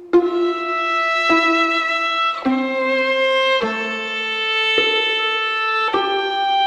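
Slow instrumental music led by a bowed violin, moving through long held notes about one a second.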